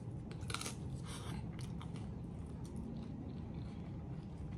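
A person biting into and chewing a slice of homemade pizza, with a few faint crunches of the crust in the first two seconds.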